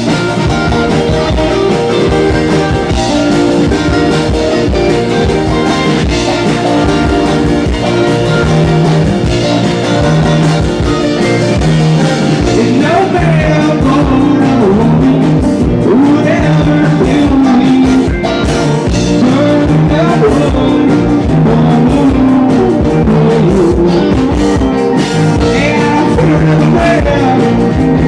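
Live rock band playing a song, with guitar and a sung vocal line over a steady rhythm.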